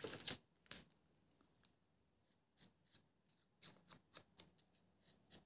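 Faint, scattered ticks and scratches of small paper cut-outs being handled and their edges coloured with a marker on the tabletop.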